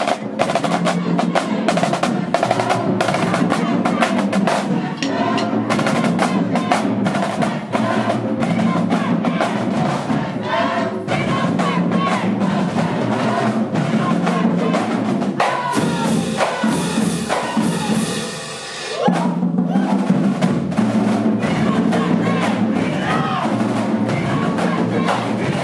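High school marching band playing, led by its drumline: rapid snare drum strokes over bass drums, with a brief change in the pattern and a dip in loudness about two-thirds of the way through.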